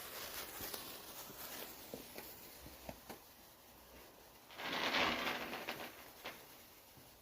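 Wood fire crackling with scattered small pops, and a brief louder rustling hiss of about a second roughly five seconds in.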